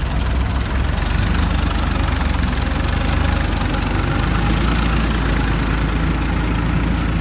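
Heavy diesel engine idling steadily with a low, even rumble.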